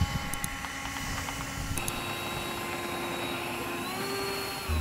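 Twin electric ducted fans of a radio-controlled CRJ-900 model jet whining steadily with several held tones. The pitch shifts about two seconds in and rises slightly near the end.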